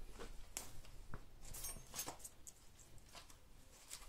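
Faint handling sounds: a scattering of small clicks and taps as items are picked up and moved, with a small cluster of them about halfway through.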